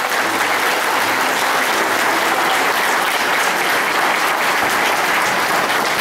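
Audience applauding steadily, a dense run of hand claps, at the close of a recited poem.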